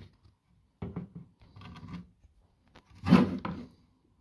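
Handling noise as the parts of an airsoft rifle are moved about: rubbing and scraping in three short bursts, about a second in, just before two seconds, and the loudest at about three seconds.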